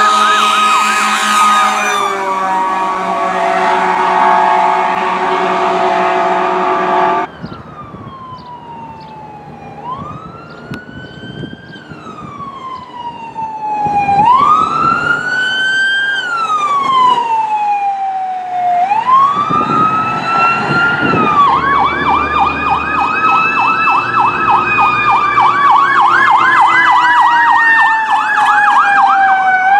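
Sirens of responding fire and rescue vehicles. First a loud steady tone with a siren over it; after a sudden cut, electronic sirens wailing in slow rising and falling sweeps, joined about two-thirds of the way through by a fast yelp of about three sweeps a second.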